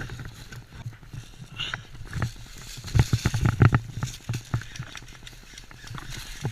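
Footsteps of a player running over the ground, an uneven run of thuds and clicks that gets busier about three seconds in.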